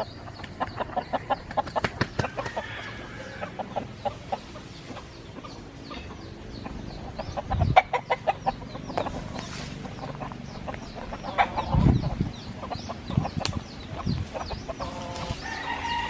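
Chickens clucking in short repeated calls, with high chirps in the second half and a couple of low thumps in the middle.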